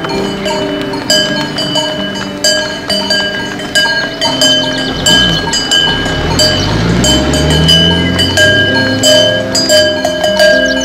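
Many cowbells clanking and ringing as a herd of cows walks, with a cow mooing in a low call that rises in pitch around the middle.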